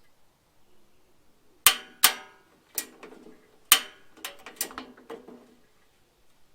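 A series of about seven sharp metallic clicks and clanks, irregularly spaced over about four seconds, each with a brief ring.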